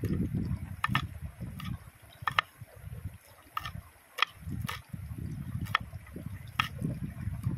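Chef's knife slicing through a green vegetable into a wooden cutting board: sharp taps at an uneven pace, roughly one or two a second, some in quick pairs. Under them runs a low, uneven rushing of stream water.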